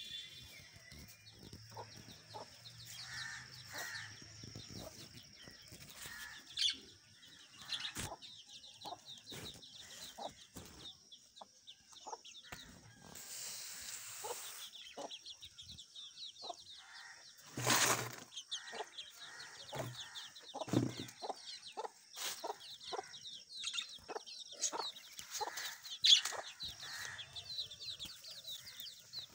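A small flock of hens clucking and calling in short, scattered notes, with a few sharp knocks and a brief flutter of wings about halfway through.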